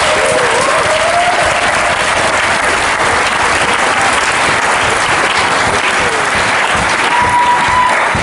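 Audience applauding steadily in a large hall, the clapping easing off right at the end.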